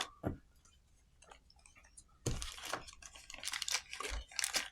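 Small parts of a third-hand soldering tool being handled on a desk: a run of irregular clicks and rustles starting about two seconds in.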